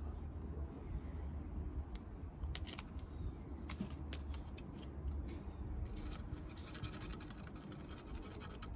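A cat clawing and batting at a leaf held out to it: light scratching and rustling with scattered sharp clicks, over a steady low rumble.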